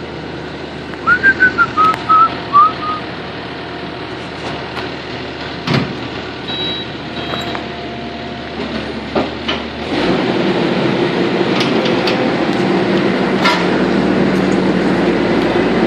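Kubota SVL90 compact track loader's diesel engine running steadily, then revving up about ten seconds in and running louder as the machine works on the shelving. A few short, high, wavering chirps come between one and three seconds in, and there are scattered knocks.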